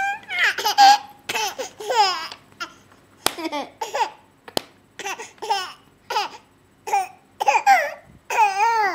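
Baby laughing and squealing in a quick run of short, high-pitched bursts, with two sharp clicks partway through.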